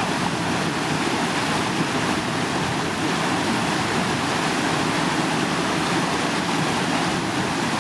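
Steady rush of whitewater from a river standing wave, the Glenwood Wave, pouring over its drop.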